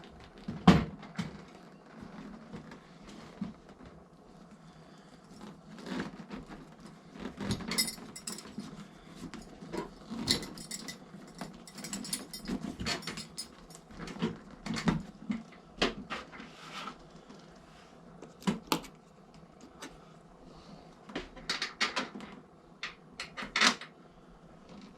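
Intermittent metallic clicks, knocks and short rattles of hand tools and bolts being handled while fitting saddlebag mounting hardware to the motorcycle, with the sharpest knock about a second in.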